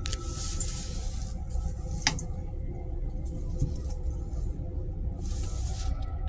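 Steady low rumble and hum of an M3 railcar heard from inside its restroom, with a sharp click about two seconds in and a short hiss near the end.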